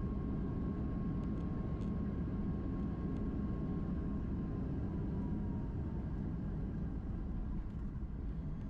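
Steady cabin noise inside a Boeing 737 MAX 8 on the ground after landing: the low rumble of its CFM LEAP-1B engines with a thin whine that slides lower about five or six seconds in.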